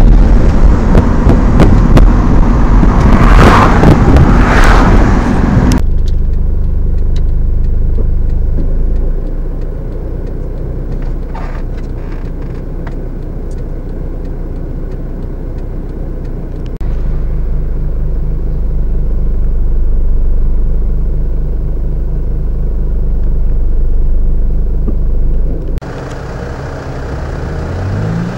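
Low, steady car rumble with a droning engine hum. A loud noisy rush covers the first six seconds, then the drone carries on and gets louder about two-thirds of the way through.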